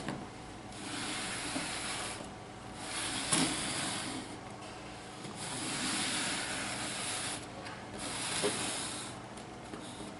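Cardboard shoebox and its paper being handled: several rubbing, rustling swells a second or two each, with a light knock a little over three seconds in.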